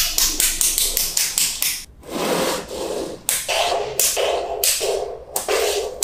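Small magnetic balls clicking and clacking together as blocks of them are set down and snapped into a row. A quick run of light clicks comes first, then heavier clacks about every half second from about two seconds in.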